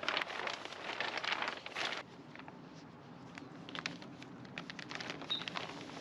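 Thick 6-mil plastic sheeting crinkling and crackling as it is handled. The crackling is heaviest for the first two seconds, then thins to scattered crackles.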